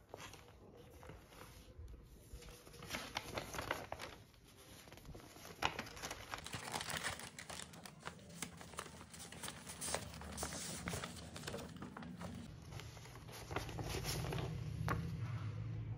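A stiff brown paper envelope being handled and opened by hand: crinkling, rustling and crackling paper, busiest from about three seconds in until about twelve seconds in.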